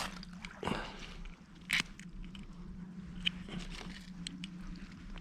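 Ferro rod (fire steel) struck with a scraper in a few separate short, sharp rasps, the first the loudest, without yet lighting the tinder.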